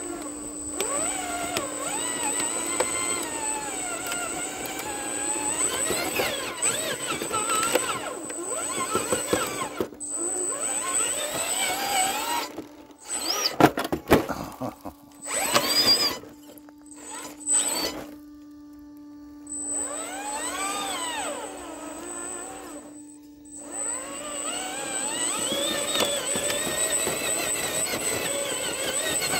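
Electric motor and gears of a radio-controlled rock crawler whining, the pitch rising and falling with the throttle over a steady high whine. There are a few sharp knocks about halfway through, and the motor pauses briefly about two-thirds of the way through.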